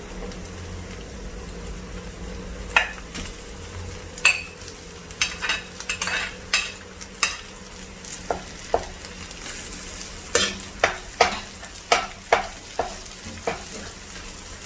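Egg fried rice being stir-fried: a spatula knocks and scrapes against the pan over and over at an uneven pace, over a steady sizzle of rice and egg in hot oil.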